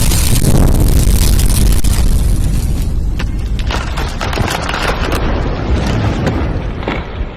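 Loud, rumbling boom-like sound effect with crackles, heavy in the low end, that fades out near the end.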